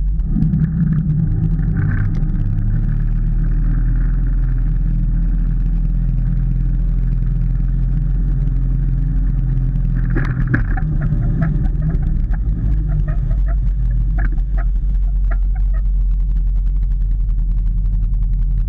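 Tow boat engine revving up as it pulls away with a skier, then running steadily at speed, with wind on the microphone. Clicking and spattering come in about ten seconds in, when the skier falls in a burst of spray.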